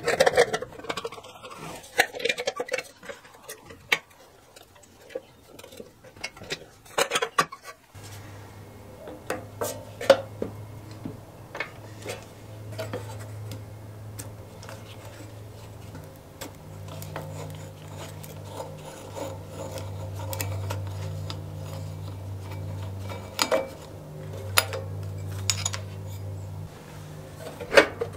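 Metal clinks, taps and scrapes from hands and a screwdriver working the painted steel cowling and starter cup of an old Suffolk Punch lawnmower engine. A steady low hum sets in about eight seconds in and runs under the clinks.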